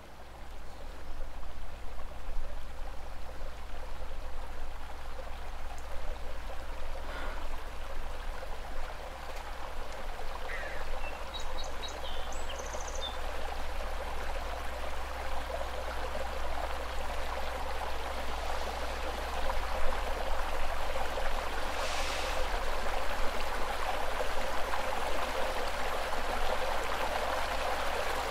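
A steady rushing hiss that slowly grows louder, over a low steady hum, with a few faint high chirps about twelve seconds in.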